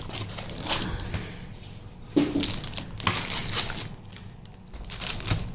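Packaging rustling and crinkling in the hands as a laptop is unwrapped, with a soft knock about two seconds in.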